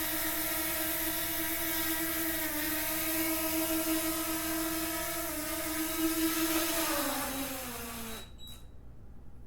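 DJI Mini 2 drone's propeller motors whining steadily in a hover, the pitch stepping down slightly twice. About seven seconds in, the whine falls as the drone lands and the motors spin down, then stops abruptly, followed by a short high beep.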